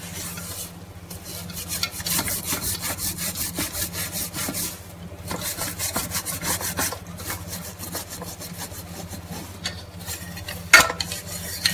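Hand scrubbing of a pressure-cooker lid soaking in soapy water: quick, rhythmic rubbing strokes, strong for the first several seconds and then lighter. A single sharp knock comes near the end.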